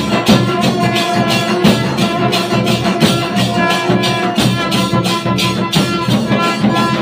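Music with a fast, steady percussion beat and held melody notes over it.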